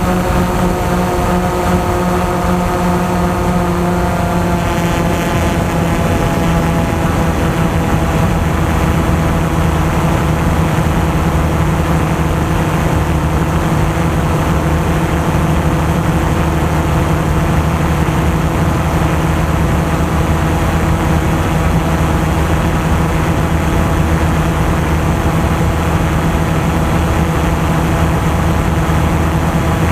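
DJI Phantom 2 quadcopter's electric motors and propellers droning in flight, the pitch shifting a little in the first few seconds and then holding steady.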